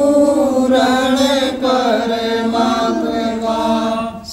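A Hindi devotional prayer song (bhajan) sung by one voice, drawing out a long held note with slight wavering in pitch. It dips briefly near the end before the next line.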